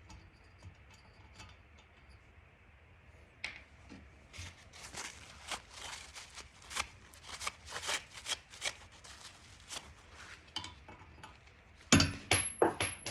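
Small metal clicks and scrapes as a thread-chasing tap is worked by hand through the spark plug hole of a chainsaw cylinder, cleaning the threads. A louder clatter of metal tools near the end.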